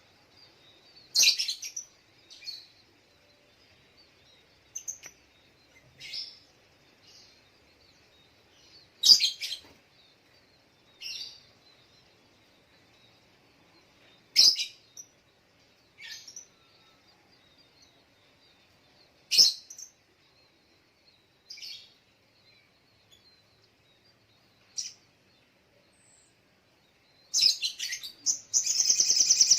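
Sogok ontong (spiderhunter) calling: sharp, high single chips every few seconds, then near the end a rapid, continuous trilling song.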